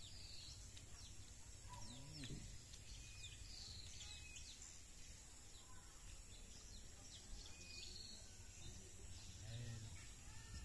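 Faint outdoor birdsong: short high chirps and whistles from several birds, repeating throughout, over a steady thin high hiss and a low background rumble.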